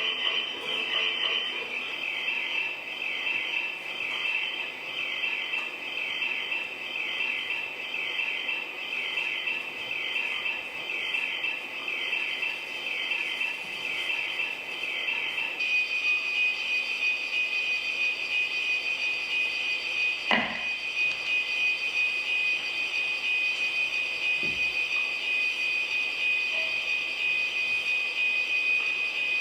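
High-pitched, chirring drone from a live experimental sound score, with quickly repeating sweeps. About halfway through it changes abruptly to a steady high whine, and a single knock sounds a few seconds later.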